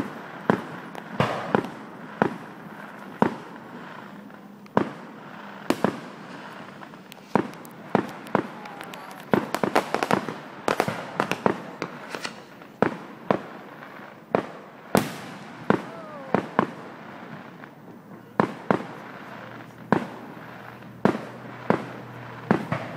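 Fireworks display: aerial shells going off in a string of sharp bangs, about one or two a second, with a quick run of cracks about ten seconds in.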